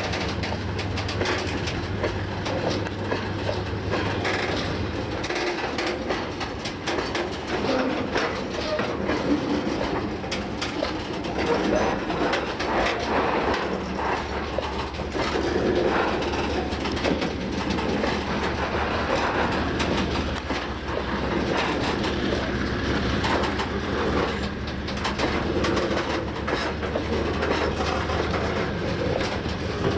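Loaded freight wagons (flat wagons carrying concrete sleepers, then ballast hopper cars) rolling past close by: a steady rumble of wheels on rail with repeated clicking and clatter over the rail joints. A low hum drops away about five seconds in.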